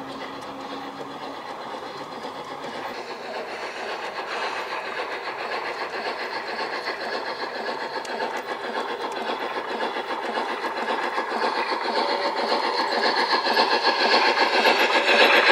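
Garden-railway model of steam locomotive 99 6001 running along the track with its train, a dense, fast rattle that grows steadily louder as it approaches.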